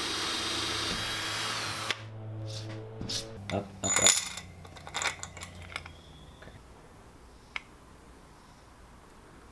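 Cordless drill boring through an aluminium composite roof panel, a steady whine that cuts off about two seconds in. A quick run of metallic clicks and clinks follows, loudest in the middle, as a carriage bolt is handled and pushed through a scrap aluminium washer plate, then one lone sharp click later on.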